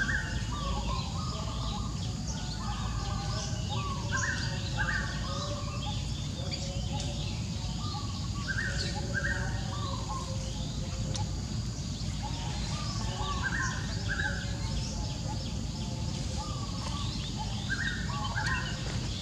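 Birds singing: one bird repeats a short warbling phrase ending in two higher notes about every four to five seconds, while other birds chirp, over a steady low outdoor rumble.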